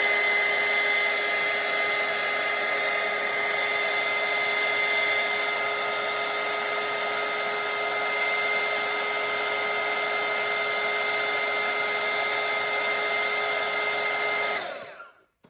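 Handheld electric blow dryer running steadily, its motor holding a steady whine over the rush of air as it dries wet watercolour paint, then switched off near the end and spinning down.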